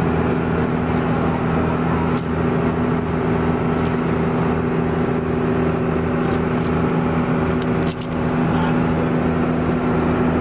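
Engine of a wooden passenger boat running steadily under way, a constant low drone with a hum, joined by a few brief clicks.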